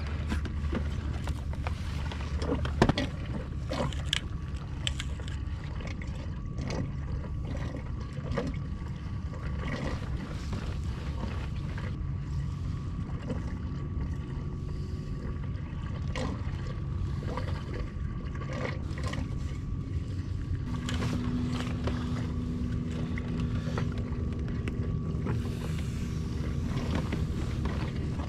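Fishing tackle being handled aboard a plastic kayak while a new leader is tied on: scattered small clicks and knocks, with a sharper clack about three seconds in, over a steady low background rumble.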